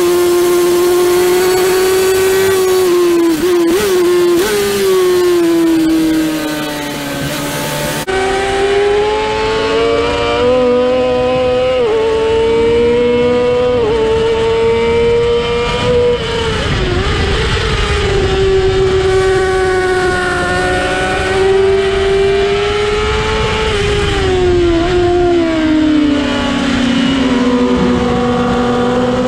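Inline-four 600cc sport-bike engines racing at high revs, heard from on board: a Honda CBR600F, then from about eight seconds in a Yamaha R6. The pitch climbs and drops repeatedly with throttle and gear changes.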